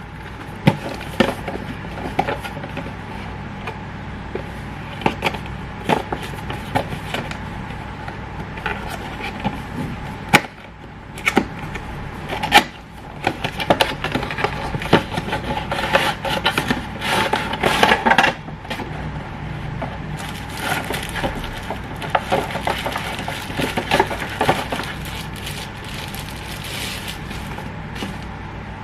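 Plastic packaging being opened and handled: crinkling and rustling in bursts, with many sharp clicks and taps, over a steady low background hum.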